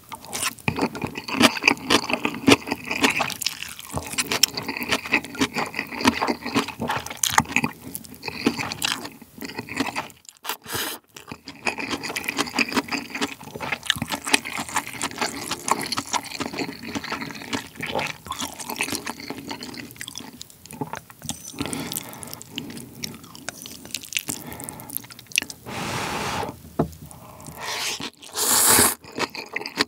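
Close-miked eating of spicy instant ramen with kimchi: wet chewing and lip smacks with frequent small clicks, and loud noodle slurps near the end.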